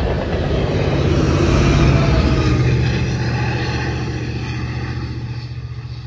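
Diesel freight locomotives, a BNSF unit among them, passing close with their engines running in a steady low drone. Loudest about two seconds in, then fading as they move away.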